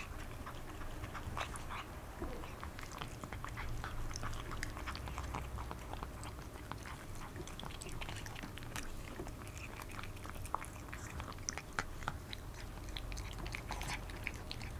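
A kitten chewing and crunching a cat treat, with quick, irregular small crunches and mouth clicks.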